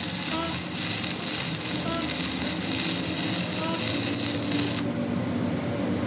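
Electric arc welding on a steel truck axle housing: the steady crackling hiss of the arc, which stops abruptly about five seconds in when the arc is broken.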